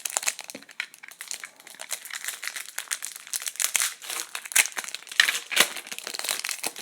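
Wrapper of an Upper Deck Artifacts hockey card pack crinkling and crackling as it is torn open and handled. The crackles are loudest about five seconds in.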